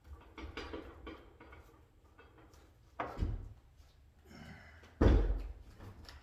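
A paintbrush stroking liquid paint stripper onto a wooden door, then two sudden dull knocks about two seconds apart as the brush and a plastic jug of stripper are handled; the second knock is the loudest.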